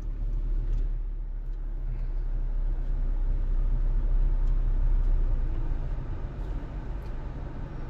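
Car being driven slowly, a steady low rumble of engine and road noise that swells in the middle and eases off near the end.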